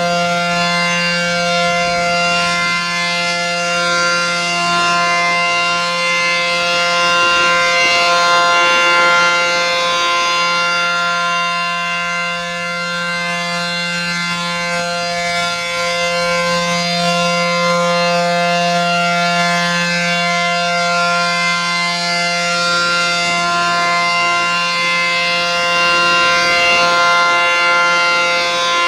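ACA P-10 outdoor warning siren sounding the Alert signal, a steady tone at an unchanging pitch, its loudness swelling and easing a little every several seconds. It is sounding as a tornado warning.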